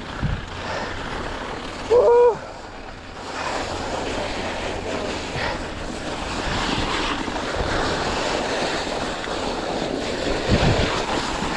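Wind rushing over the camera microphone and mountain-bike tyres hissing over snow on a fast descent, with one brief loud squeal about two seconds in.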